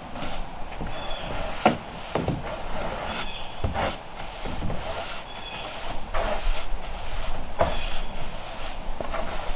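A long-handled push broom sweeping across a flat surface in repeated rasping strokes, roughly one a second, with an occasional knock.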